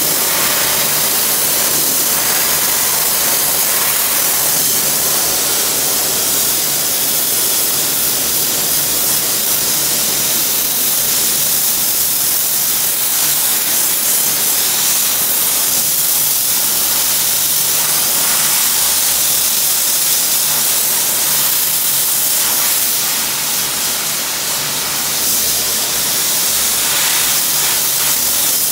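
Sandblasting: compressed air and abrasive grit rushing from a blast nozzle in a loud, steady hiss that dips slightly about three quarters of the way through.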